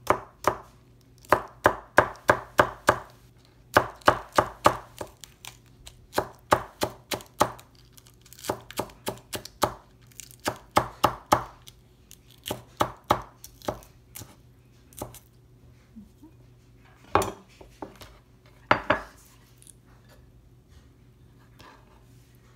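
Chef's knife chopping green onions on a bamboo cutting board: quick runs of sharp strikes on the board, about three or four a second, with short pauses between runs. Two louder knocks come near the end, then the chopping stops.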